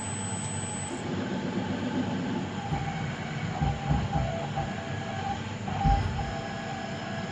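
CNC milling machine's axis motors whining steadily as the axes move, with a few low thumps in the second half.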